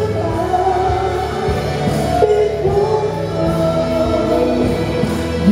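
A man singing a Cantopop ballad live into a handheld microphone over backing music, his sung notes held and gliding.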